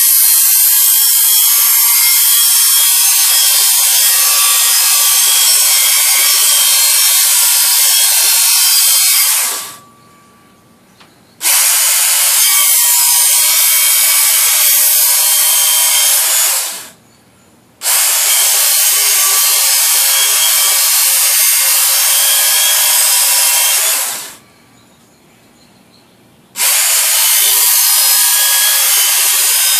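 Work Sharp electric belt sharpener grinding the steel edge of a shovel blade, a loud steady hiss. The trigger is let off three times, stopping the sound for one to two seconds at about ten, seventeen and twenty-four seconds in.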